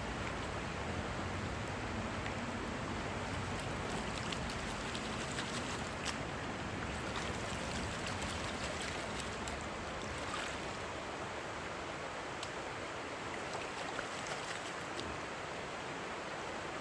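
River water flowing steadily, with a few faint clicks over it.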